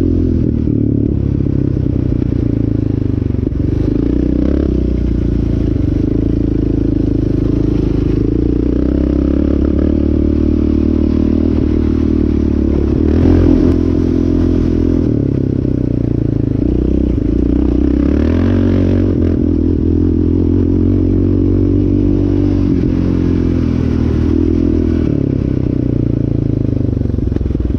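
Yamaha Raptor 700R sport ATV's single-cylinder four-stroke engine running while the quad is ridden, its pitch stepping up and down as the throttle opens and closes.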